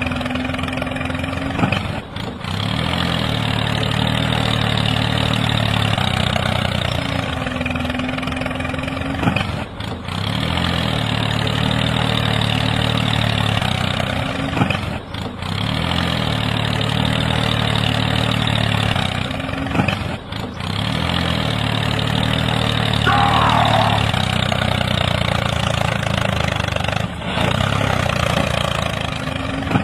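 Tractor engine sound effect running at a steady idle, dipping briefly every five to seven seconds where the looped recording restarts.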